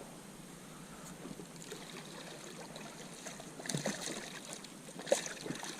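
Water lapping and trickling against a small inflatable boat, with a few faint knocks about four and five seconds in.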